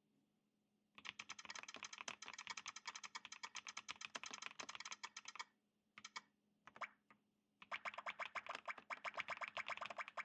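Fast typing on a Skyloong GK104 Pro mechanical keyboard with KTT × Skyloong Rose Sea-Blue tactile switches, PBT OEM-profile keycaps and a plastic gasket-mount case. A dense run of keystrokes starts about a second in, breaks for a few short bursts, then resumes quickly.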